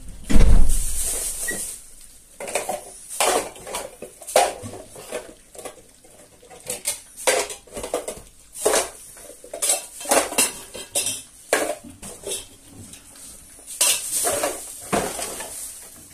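Metal feeding bowls and food cans clattering and scraping in quick, irregular clinks, with one heavy knock about half a second in.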